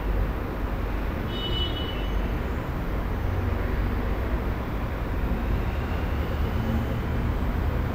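Residential room tone: a steady low rumble with a light hiss over it. A brief, faint high-pitched tone sounds about a second and a half in.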